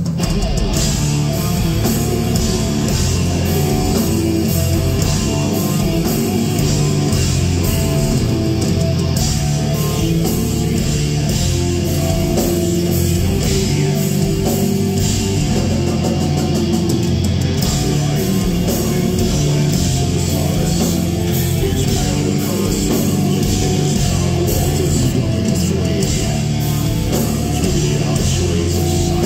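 A heavy metal band playing live and loud: distorted electric guitars over bass and drums, heard from the audience.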